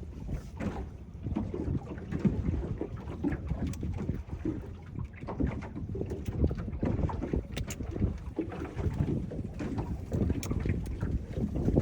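Wind buffeting the microphone: a low, irregular rumble that rises and falls.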